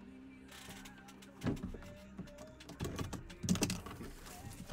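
Hands handling a sealed cardboard mini-helmet box on a desk: a string of clicks and knocks as it is gripped, turned and set down, the first clear knock about a second and a half in and several more close together near the end.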